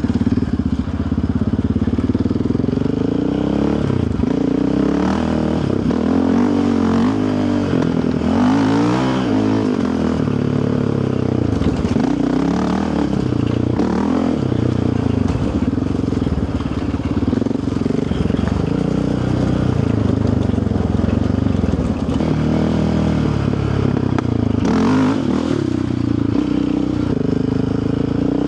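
Yamaha Raptor 700R single-cylinder four-stroke ATV engine running under way, its pitch rising and falling again and again with the throttle.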